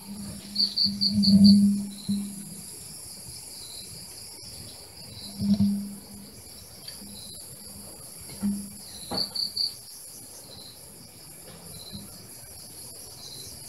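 Crickets chirping in short pulsed trills over a steady high-pitched insect drone, with a few short low-pitched sounds nearby, the loudest about a second in.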